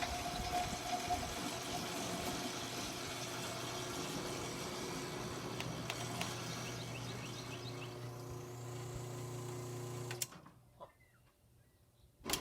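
A motor running steadily at one pitch, cutting off abruptly about ten seconds in. A few faint bird chirps are heard near the middle.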